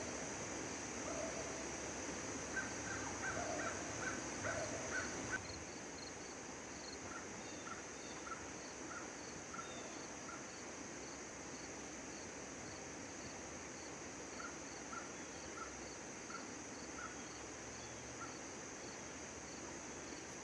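Summer insect drone, steady and high, with a faint evenly repeated chirping. Over it comes a run of short bird calls, quick and fairly loud for the first five seconds, then fainter and more spaced out.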